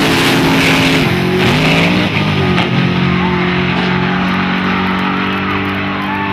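Electric-guitar music, with the cars accelerating hard off the line underneath it.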